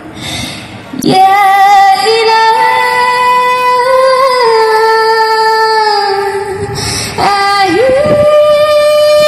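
A young woman singing into a microphone, amplified through a small portable street amplifier: long held notes that step up and down in pitch, with an audible breath before the first note and another about seven seconds in before she rises to a higher held note.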